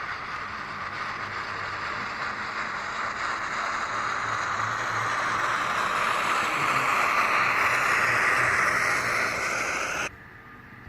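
Sound decoder of a model T20 steam locomotive playing a steady steam hiss that slowly grows louder, then cuts off suddenly near the end.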